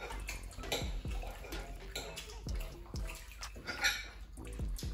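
People eating: chewing and wet mouth sounds, with a knife and fork clicking and scraping on a plate.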